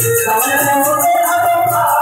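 Instrumental stretch of a folk devotional bhajan: harmonium holding a melody over a steady dholak beat, with jingling metal percussion keeping time.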